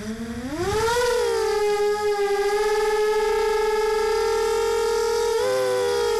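FPV multirotor drone's electric motors spinning up with a rising whine, then holding a steady, slightly beating hum as it hovers. The pitch wavers briefly near the end with a throttle change.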